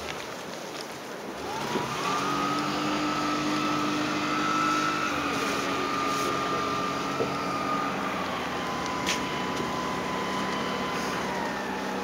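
The raft's outboard motor picks up about two seconds in and then runs steadily, dropping slightly in pitch twice as the throttle eases, with wind and water noise underneath.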